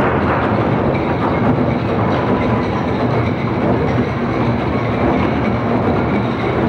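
Ensemble of Korean buk barrel drums beaten together in a fast, dense, unbroken rhythm.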